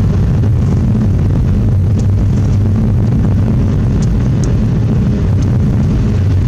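Car interior road noise while driving on a snowy road: engine and tyres making a steady low hum, with a few faint ticks.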